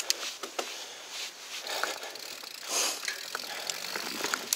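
Mountain bike rolling down a dirt forest singletrack: tyre noise over dirt and roots with scattered clicks and rattles from the bike, and a brief louder rush of noise about three seconds in.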